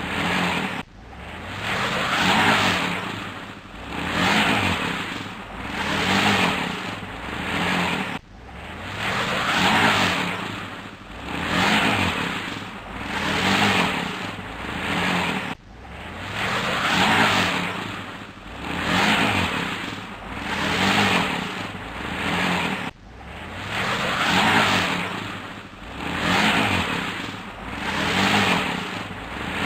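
Engine of a truck stuck in mud revving in repeated surges, rising and falling about every two seconds, as it tries to drive out with its wheels spinning.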